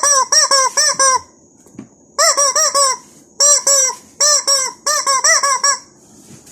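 Squeaky chicken toy squeezed over and over: four quick runs of short squeaks, each squeak rising and falling in pitch with an airy hiss through the squeaker, with brief pauses between the runs.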